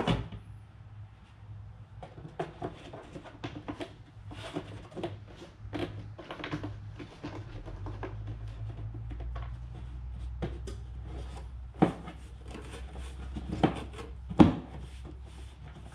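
Plastic airbox lid and intake duct of a BMW N55 engine being handled and pressed down over a new air filter: rubbing and clicking of plastic, with three sharp snaps in the last few seconds as the lid's retaining clips are latched. A steady low hum runs underneath.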